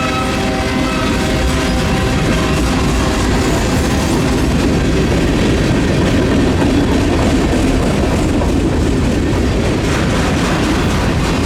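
Union Pacific freight train rolling past: steady rumble and clatter of wagon wheels on the rails.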